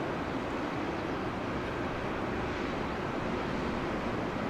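Steady rushing noise of airliner jet engines, even in level with no rise or fall.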